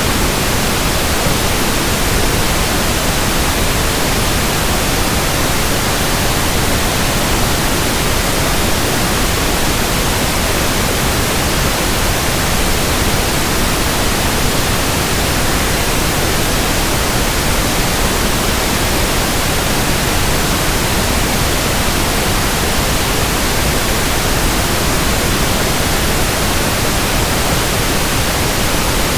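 Pink noise test signal for measuring frequency response: a steady, even hiss spread across the whole range from deep bass to the highest treble, unchanging throughout.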